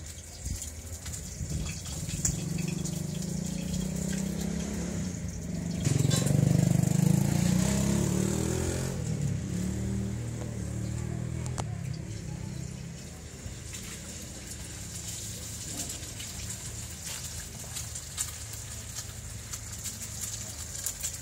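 A motor vehicle's engine running, a low rumble that builds over the first seconds, is loudest about six to nine seconds in, then fades away a few seconds later.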